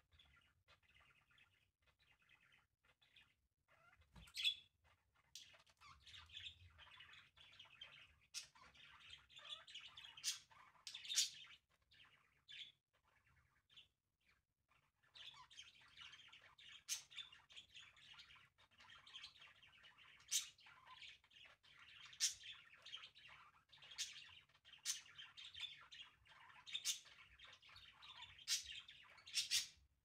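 Budgerigars chattering and warbling, with sharp high chirps now and then. The chatter dies down briefly about halfway through, then picks up again and grows fuller towards the end. A single thump sounds about four seconds in.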